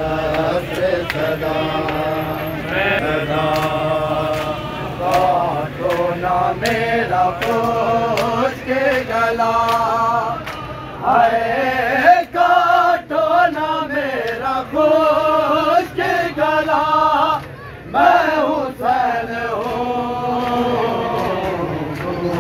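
Men chanting a noha, an Urdu lament for Imam Hussain, in sung phrases.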